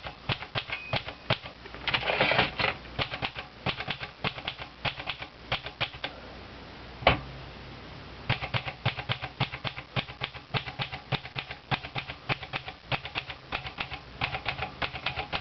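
Olivetti Lettera 32 manual portable typewriter being typed on: rapid clacking key strikes, several a second. The typing stops for about two seconds around the middle, broken by a single louder clack, then resumes.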